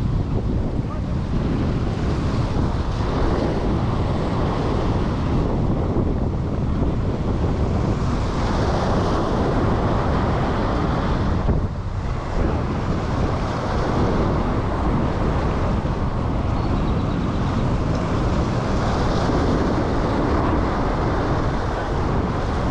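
Strong wind buffeting the microphone, heaviest in the low end, over waves breaking and washing against the granite jetty rocks. The noise is steady apart from a brief dip about halfway through.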